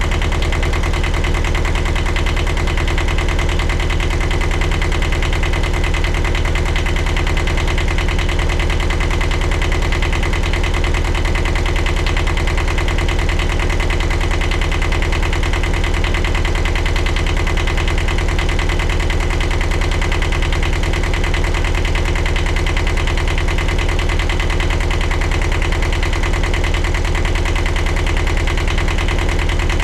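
Sailboat's inboard diesel engine idling steadily, an even rapid chugging that does not change.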